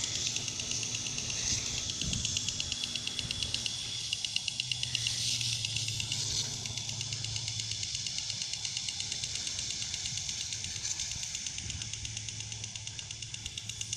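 Lawn sprinkler running: a steady hiss of spraying water with a fast, even ticking.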